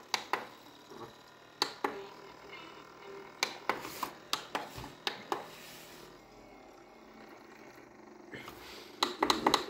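Sharp plastic clicks of buttons being pressed on a portable DVD player, in irregular groups, with the player's sound muted. They pause after about six seconds, then a quick run of clicks comes near the end.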